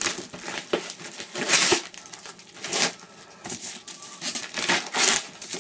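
Bubble-wrap packaging crinkling and rustling in irregular bursts as it is pulled apart by hand.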